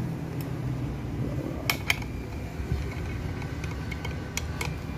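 Light metallic clicks and clinks from handling and fitting an aluminium chain-bar adapter and its clamp ring onto a cordless angle grinder, with two quick double clicks, one near the middle and one near the end, over a steady low hum.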